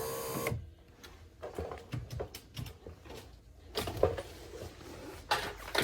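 Electric window motor in an Audi A5 door running with a steady hum, cutting off about half a second in, followed by scattered light clicks and knocks.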